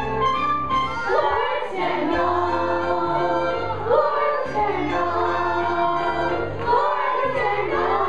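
A children's chorus singing a musical-theatre number together over instrumental accompaniment.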